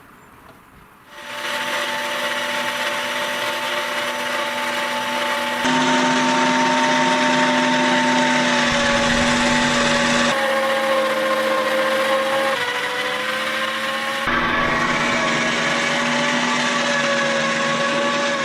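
Electric meat grinder motor running with a steady hum as it grinds. It starts about a second in and changes abruptly in pitch and loudness several times.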